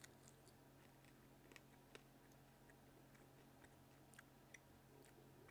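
Faint chewing of a soft chocolate candy with a fruit filling: scattered small clicks from the mouth over a steady low room hum.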